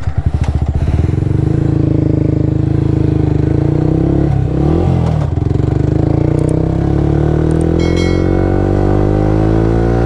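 Motor vehicle engine running loud and steady, its pitch dipping and recovering about four to five seconds in, then rising steadily as it accelerates.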